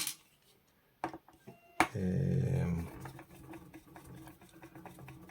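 A screwdriver working the screws on the Xbox Series S heatsink. There are a few sharp clicks, then a steady buzz for about a second, then light rapid ticking.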